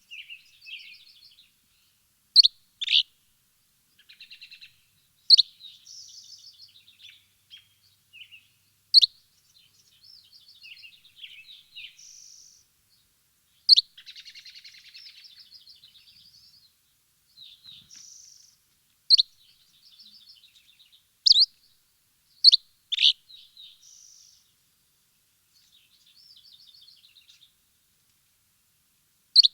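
Birds chirping: sharp loud chirps every few seconds, with softer rapid twittering trills in between.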